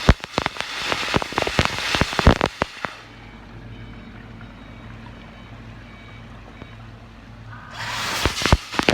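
Rotary drum filter's backwash spray jetting water onto the screen, a crackly spatter of drops. About three seconds in the spray stops and the filter's motor hum goes on alone. The spray starts again near the end.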